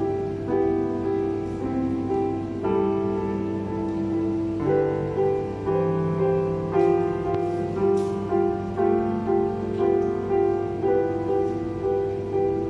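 Solo grand piano played live: held chords under a melody, the notes changing about every half second to a second, over a faint steady hum.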